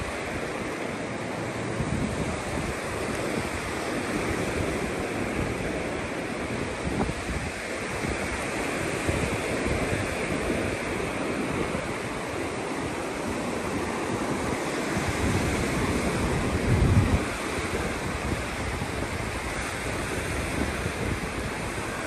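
Ocean surf washing onto the beach, a steady rush of noise, with wind buffeting the microphone; a louder gust of low rumble comes about three-quarters of the way through.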